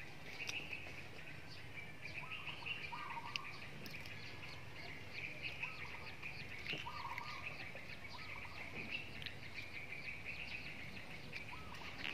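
Small birds chirping in quick, repeated notes, with a few short lower calls now and then, over a steady high outdoor background. A few light clicks, like a spoon touching a plate, come in between.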